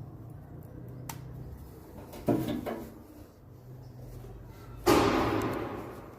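Two knocks from hands working on equipment: a sharp clatter about two seconds in, then a louder knock with a rattle that fades over about a second, over a steady low hum.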